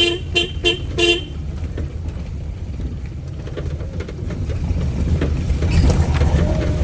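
A vehicle horn honking in four quick short toots within the first second, over the steady low rumble of a vehicle driving on the road.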